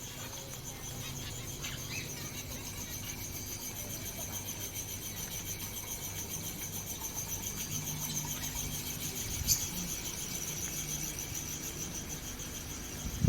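Insects trilling: a continuous, high-pitched, rapidly pulsing chirr, with a single faint click about nine and a half seconds in.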